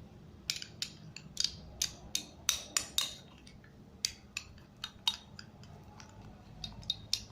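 A small spoon clinking and tapping against a bowl while stirring glue and activator into slime, in quick, irregular clicks starting about half a second in.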